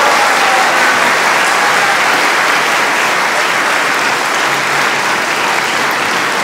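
A concert audience applauding steadily.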